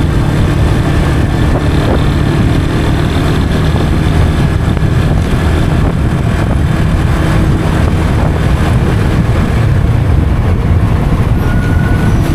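Yamaha FZ 25's 249cc single-cylinder engine running steadily through its stock exhaust while the motorcycle cruises along.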